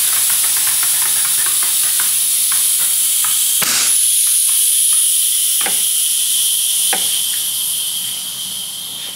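High-pressure air hissing steadily through the air-jack valve and lines of a BMW M4 GT3 race-car air-jack system, with a few sharp clicks; after a loud click about four seconds in a thin whistle joins the hiss, which fades near the end.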